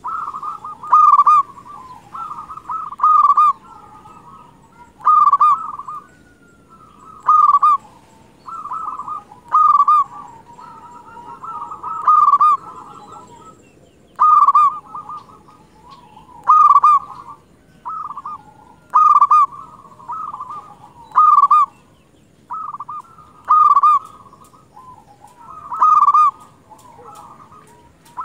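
Local zebra dove (perkutut) cooing vigorously: a loud run of quick, stuttering coos about every two seconds, with softer coos in between.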